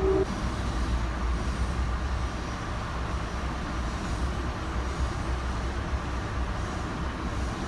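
Amtrak Cascades passenger train running along the track: a steady low rumble.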